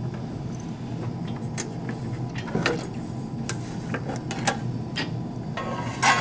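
Handling sounds of the cover of a Shimadzu SIL-10A autosampler syringe unit being worked loose and lifted off: scattered light clicks and knocks, then a louder clatter with a brief ring near the end as the cover comes free.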